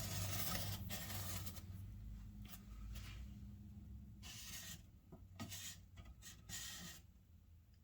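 Marker drawing along the outside edge of roadbed on foam board, a faint scratching in a series of short strokes.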